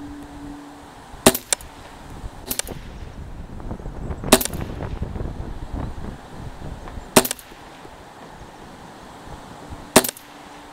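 Tippmann M4-22 semi-automatic .22 LR rifle firing slow, aimed single shots, about five, one to three seconds apart, each a sharp crack. Gusty wind rumbles on the microphone between the shots.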